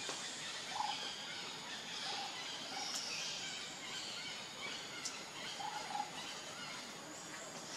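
Outdoor ambience with a few short, soft animal calls scattered through, and two sharp clicks in the middle.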